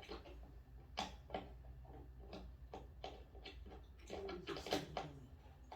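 Light, irregular clicks and taps of screws and flat-pack cabinet parts being handled and fitted, about two or three a second with a busier cluster near the end, over a faint low hum.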